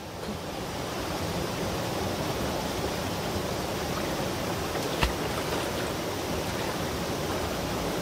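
Steady rush of a fast-flowing mountain stream and its rapids, with one short knock about five seconds in.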